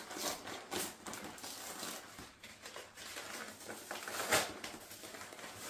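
Brown paper mailer bag being torn open and crinkled by hand: irregular crackling rustles, loudest a little after four seconds in.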